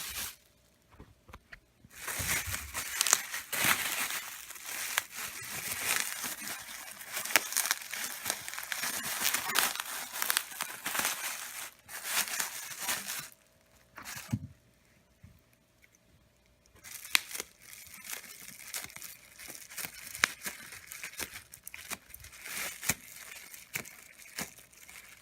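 Packing material crinkling, crackling and tearing as it is pulled and pushed about by hand, in two long stretches with a quiet pause of a few seconds in the middle.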